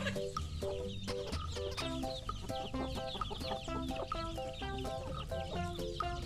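Chickens clucking and peeping, with many quick little chirps, over a bouncy children's tune played in short stepped notes with a pulsing bass.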